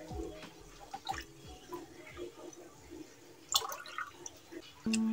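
Falsa soda juice being ladled into a cut-glass tumbler: small splashes and drips of liquid with light clinks, and a sharper clink about three and a half seconds in.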